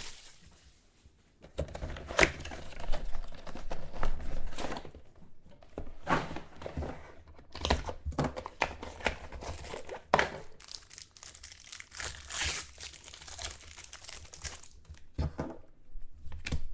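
Packaging of a box of football trading cards being torn open and handled: irregular tearing and crinkling of wrapper, with scattered knocks and rustles of cardboard and cards.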